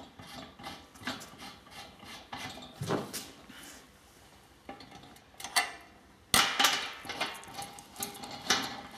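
Irregular metal clinks and knocks as a stainless-steel top plate is fitted and fastened onto the stainless-steel pot of a dough mixer. One sharp clank about six seconds in is the loudest.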